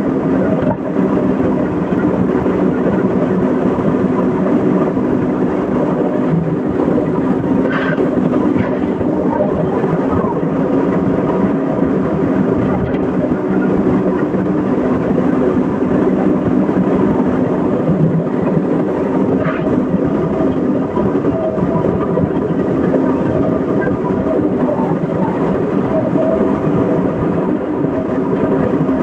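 Excavator's diesel engine and hydraulics running steadily, with two brief higher squeaks.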